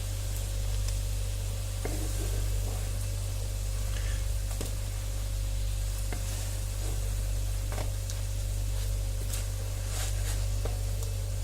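Egg-soaked bread slices frying in hot sunflower oil in a pan: a steady sizzle with scattered small pops and crackles, over a steady low hum.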